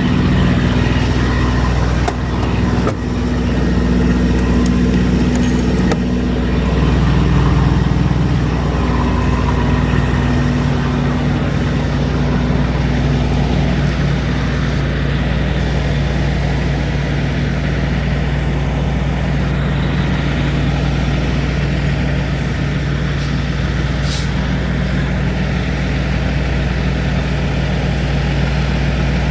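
Semi truck's diesel engine running steadily at a low idle-like pace, with a slight swell in level several seconds in.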